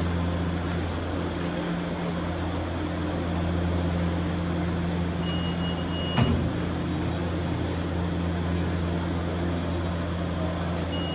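Steady low mechanical hum of the aerial tramway station's machinery. A short high beep sounds about five seconds in, followed at six seconds by a single sharp knock.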